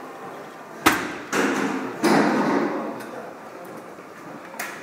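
Knocks and clanks from a gym cable machine: one sharp knock about a second in, a softer one just after, then a longer rough noise and a small click near the end.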